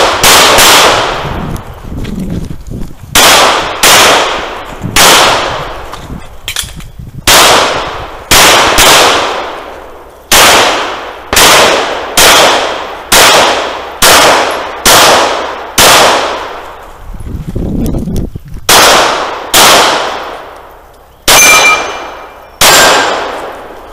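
Pistol fired in quick strings and pairs, about twenty shots, each followed by a long echoing tail. Near the end one shot is followed by a clear metallic ring, a steel target being hit.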